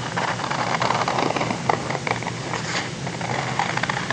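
Scissors cutting through white printer paper along a traced circle: a continuous run of crisp, crackly snips with the sheet rustling as it is turned.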